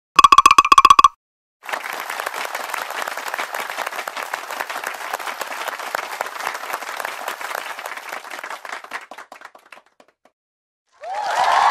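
Crowd applause, many hands clapping in a dense patter that holds steady for several seconds, then thins out and fades away. It is preceded by a brief burst of rapid pitched clicks lasting about a second.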